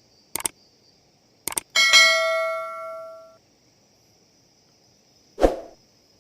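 A metal object struck once, ringing with a bell-like tone that fades over about a second and a half, after two pairs of light clicks. A dull thud comes near the end, over a steady high insect hum.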